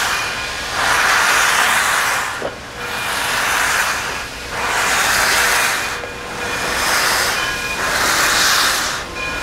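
Frisco 1630, a 2-10-0 steam locomotive, starting away slowly with its cylinder cocks blowing. Loud steam hisses rise and fall in a slow, even rhythm, about one every couple of seconds, in time with the pistons.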